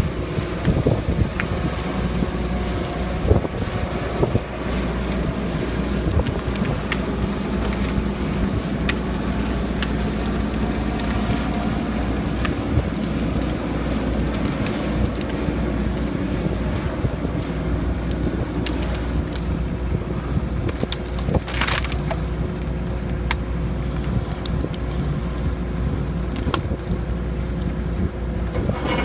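Diesel engine of a John Deere logging machine, a skidder, running steadily under work, with scattered clanks and one brief burst of noise about three-quarters of the way through.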